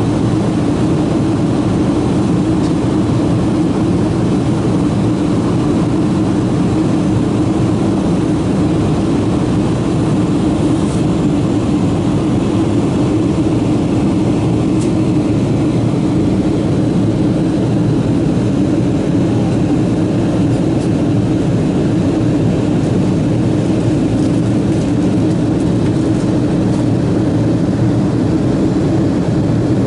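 Steady cabin drone of a Boeing 777-200 in flight, heard from a window seat beside the engine: jet engine noise and airflow, a loud, even hum that does not change.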